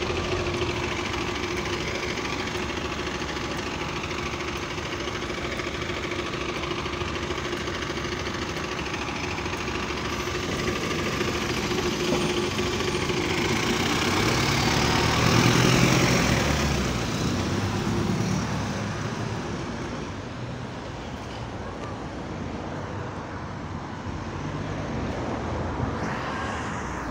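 Single-deck diesel bus engine idling with a rattle, its exhaust described by the uploader as slightly burst, then pulling away with engine noise swelling to a peak a little over halfway through and fading, leaving passing traffic.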